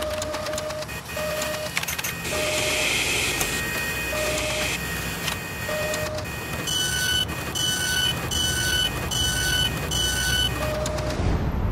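Mechanical sound effects: a steady machine-like whirring with clicks and short electronic beeps scattered through it. In the second half comes a run of six evenly spaced, higher beeps.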